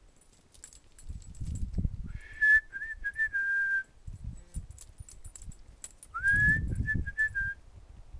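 A person whistling twice, each phrase about one and a half seconds of short warbling notes ending on a held note, with a low rumble under each.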